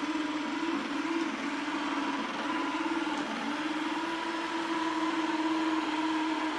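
Robot vacuum cleaner running: a steady motor whine with a hum that wavers slightly in pitch now and then.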